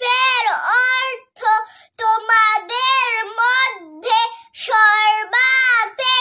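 A young girl singing unaccompanied in a high voice, in short melodic phrases with held, wavering notes and brief pauses between them.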